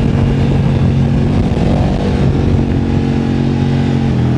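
KTM 1290 Super Duke R's V-twin, fitted with a full titanium Akrapovič exhaust, heard from on board while riding, running at a fairly steady engine speed with only small changes.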